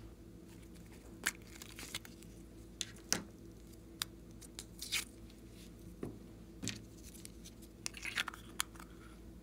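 Small plastic slime containers being handled and opened: scattered sharp plastic clicks and crinkling, about one a second with a quick cluster near the end, as slime is scooped out.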